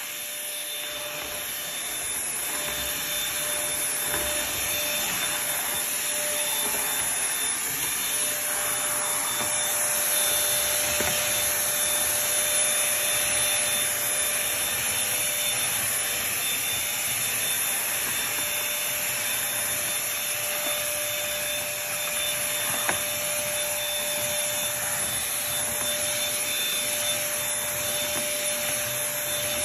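2019 Bissell 2030L stick vacuum running steadily, its motor giving a constant whine over a rushing hiss of suction, with a rubbing sound from the head swelling and easing as it moves. A single click about 23 seconds in.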